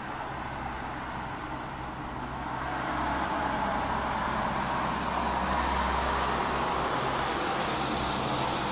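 Road traffic: a passing vehicle's noise grows louder about a third of the way in and then holds steady.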